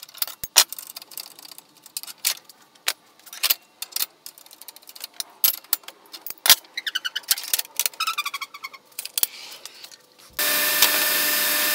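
Metal clicks and clinks of hand tools at a table saw's blade and arbor, with brief ringing metallic rattles partway through. About ten seconds in, a workshop machine switches on and runs with a loud, steady whir.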